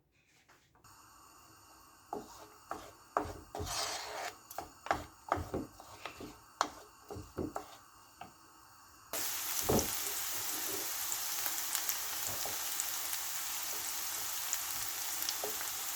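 A spoon knocking and scraping in a pan while stirring, then from about nine seconds in a steady sizzle of chopped onion, garlic and spices frying in olive oil, with one more knock of the spoon.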